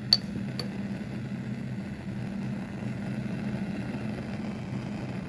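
A glass test tube clinks down onto a metal support ring, with a fainter tap half a second later; underneath, a steady low machine hum.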